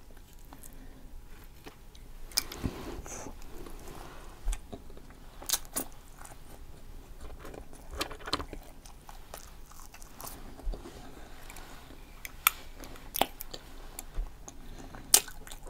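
A person chewing and biting French fries, with soft, irregular mouth clicks and crunches.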